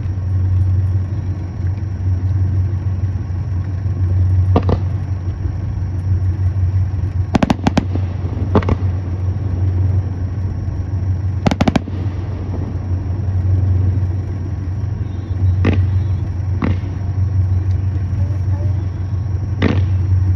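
Fireworks bursting: sharp bangs every few seconds, with a quick rattle of three or four about a third of the way in and a double bang a little past halfway, over a steady low rumble.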